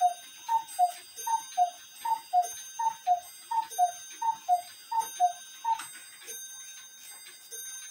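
Cuckoo clock calling: a higher then a lower note, the pair repeated about eight times in even rhythm and stopping about six seconds in, over faint clock ticking.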